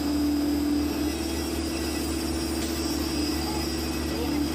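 PC120 hydraulic excavator's diesel engine running steadily, heard from inside the cab: an even engine hum with a faint high whine while the bucket holds wet concrete over the foundation forms.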